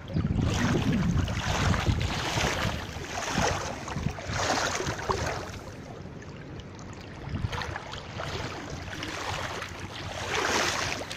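Legs wading through a shallow gravel-bed river: repeated splashing and rushing of water around the legs, a surge every second or so as each step is taken, over a low rumble.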